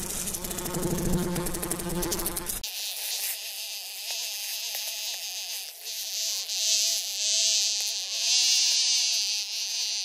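House fly buzzing in flight. For about the first two and a half seconds it is a low, steady wing hum. Then it cuts abruptly to a thinner, higher buzz that wavers in pitch and swells and fades.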